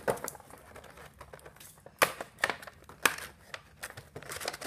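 A cardboard Funko Pop toy box with a plastic window being handled and turned over: a handful of sharp taps and knocks against the box, with crinkling of the packaging between them.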